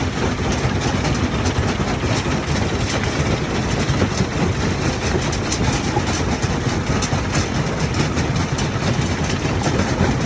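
Heavy machinery running steadily, with a low engine rumble under a dense, continuous clatter of small knocks.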